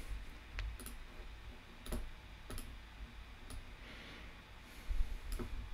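Faint computer mouse clicks, about six single clicks at irregular intervals.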